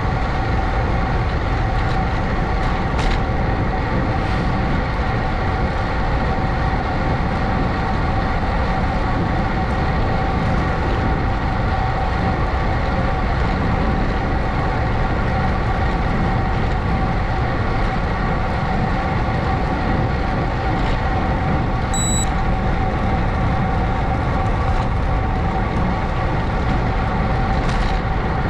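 Wind rushing over the camera's microphone while riding a bicycle, with a steady whine underneath.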